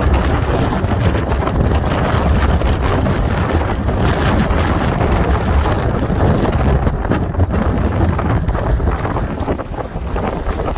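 Strong wind buffeting the microphone: a loud, steady rush with a heavy low rumble, easing slightly near the end.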